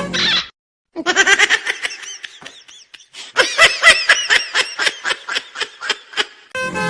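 High-pitched laughter in quick rhythmic bursts: a short bout about a second in, then a longer run of rapid laughs from about three seconds in until near the end.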